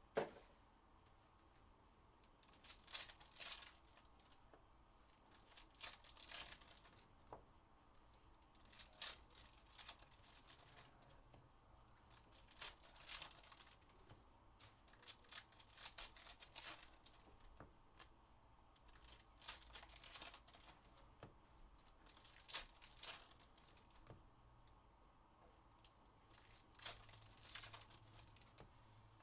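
Foil wrappers of Panini Contenders football card packs being torn open by hand, one pack after another: a short, faint crinkling rip every few seconds.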